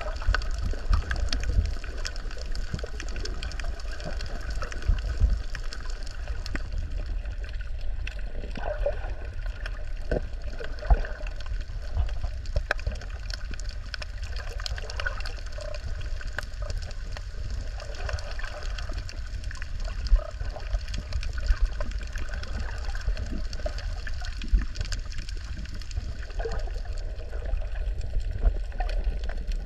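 Underwater sound on a coral reef, heard through a submerged camera: a steady low rumble of moving water with scattered sharp clicks and small gurgles.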